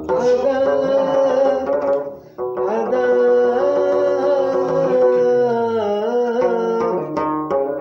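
Arabic popular song: long held, ornamented melodic notes over plucked-string accompaniment, with a brief break about two and a half seconds in.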